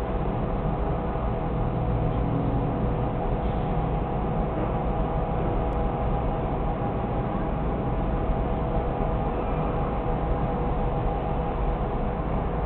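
Steady outdoor ambience: a low rumble and hiss with a faint steady hum, and no distinct events.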